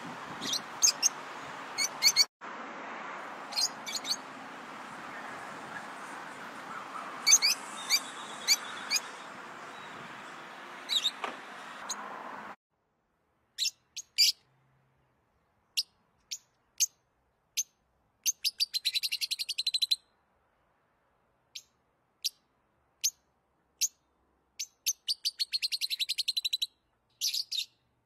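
Lovebirds chirping: short, high chirps, at first over a steady background hiss that cuts off abruptly about halfway through. After that, single chirps come on silence, with two quick runs of rapid chattering chirps near the end.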